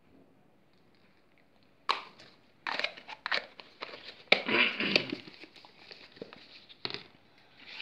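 Kitchen utensils and a plastic food tub being handled: a few seconds of clicks, knocks and rustling scrapes that start about two seconds in.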